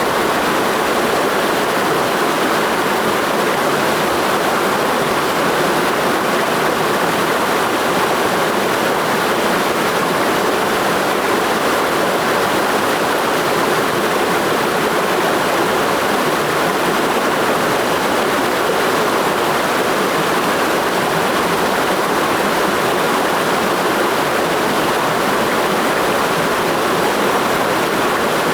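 Clear mountain stream in a gorge, flowing with a steady rush of water.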